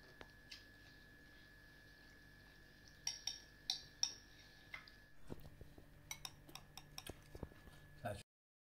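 Metal spoons clinking and tapping against ceramic bowls as people eat. A few sharp, ringing clinks come around three to four seconds in, followed by scattered lighter taps.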